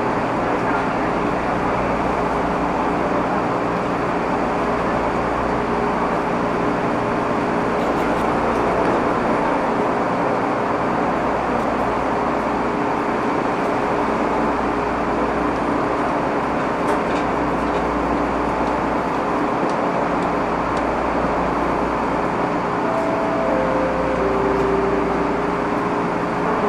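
East Rail line electric train standing at a station platform: a steady hum and hiss from the car's onboard equipment and ventilation, with a few faint tones near the end.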